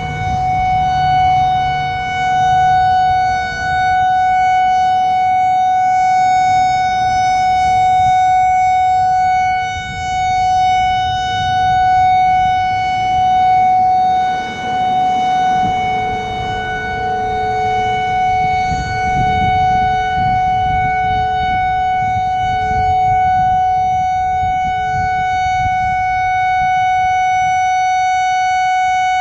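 Whelen WPS 4004 electronic outdoor warning siren sounding the steady Alert tone. It holds one pitch with a weaker, lower tone beneath it, swelling and fading in loudness every few seconds.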